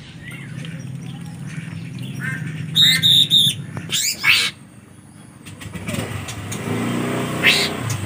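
Songbird calls: a quick series of sharp chirps about three seconds in, then fast rising whistled notes, with two more rising calls near the end. Underneath, the low drone of a passing motor vehicle fades out midway and swells again toward the end.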